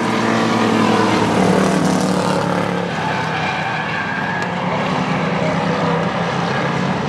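Engines of a pack of short-track stock cars racing by under power, several overlapping engine notes rising and falling in pitch, loudest about a second and a half in.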